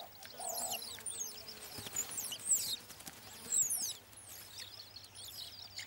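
Many short, high-pitched chirps, each falling in pitch, scattered irregularly over a faint outdoor background.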